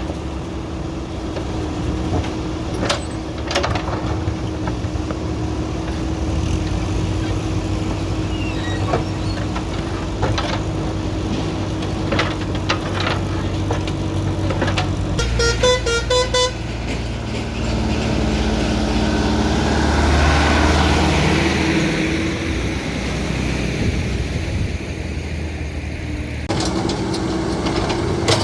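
Diesel engine of a JCB backhoe loader running steadily, with scattered clanks and knocks of the working machine. About halfway through, a vehicle horn beeps rapidly for about a second. A passing vehicle then swells louder around two-thirds of the way through.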